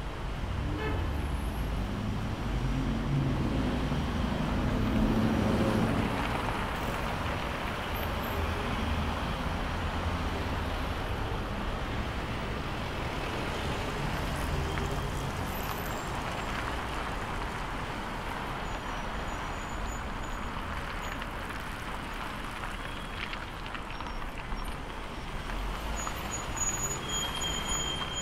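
Steady city road traffic: continuous tyre and engine noise, with one louder engine passing close in the first six seconds or so.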